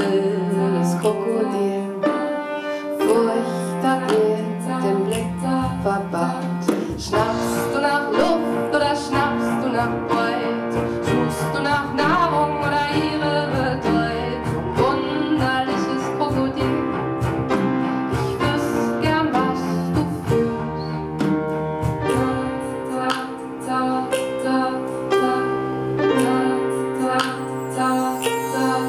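Live acoustic music: cello, grand piano and percussion played with brushes on a drum, with a cymbal and bar chimes, and a woman singing.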